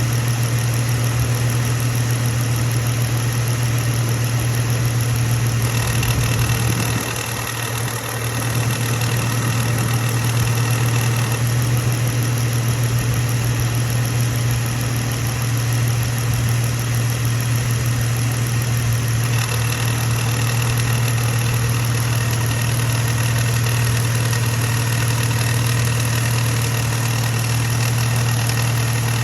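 2015 Jeep Wrangler JK's 3.6 L Pentastar V6 idling steadily under a strong low hum, recorded to show a strange noise in the engine bay that comes on intermittently. A faint high tone comes and goes, and the level dips briefly about seven seconds in.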